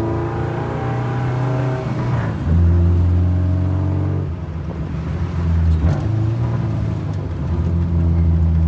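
Honda K20Z1 inline-four in an EG Civic hatch, heard from inside the cabin while driving. The engine note climbs under acceleration for the first two seconds, changes sharply about two and a half seconds in and again around four seconds, then runs fairly steady with road noise.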